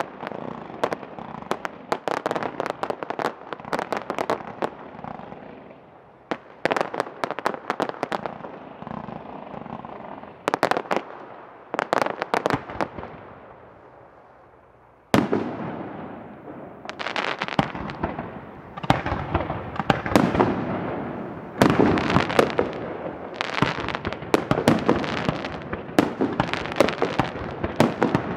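Fireworks going off: volleys of crackling bursts and pops. They fade into a short lull, then a sudden loud bang about halfway through starts a denser, louder barrage.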